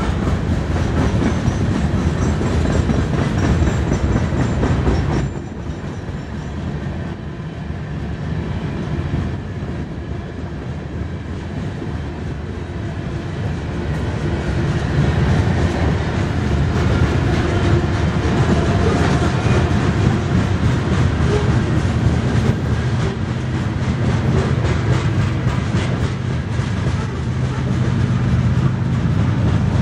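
Long train of covered hopper grain cars rolling past close by: a steady rumble of steel wheels on the rails with rapid clickety-clack. It drops a little in loudness about five seconds in and builds again through the second half.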